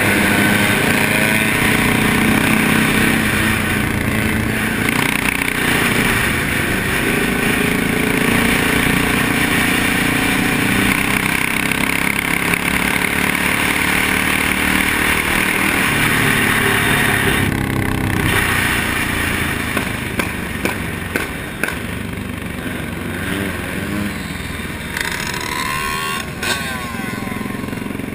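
Dirt bike and motorcycle engines running at highway speed, the pitch rising and falling as the riders rev up and ease off, with a few sharp ticks about twenty seconds in.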